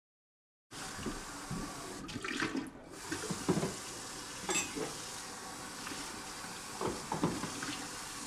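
After a brief silence, tap water runs steadily into a sink, with a few light clinks of mugs and spoons on a counter.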